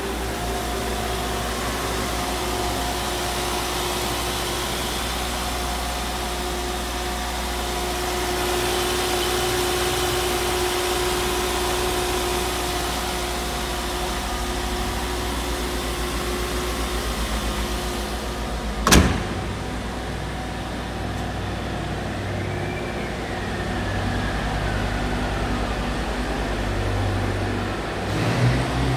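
Mercedes-Benz W124 coupe's M104 straight-six idling steadily after a cold start, with a single sharp click about two-thirds of the way through.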